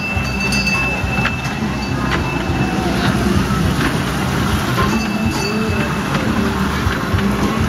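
Small amusement-park ride train running along its track: a steady rumble of the train and its wheels on the rails, with a thin high squeal at the start and again about five seconds in.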